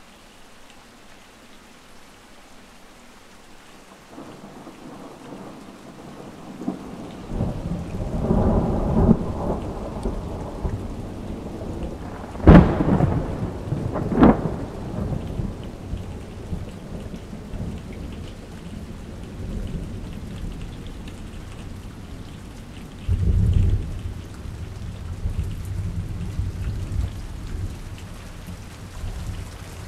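Heavy thunderstorm: steady rain, with thunder building into a long rolling rumble. Near the middle come two sharp, loud cracks of close thunder about a second and a half apart, and later another low rumble.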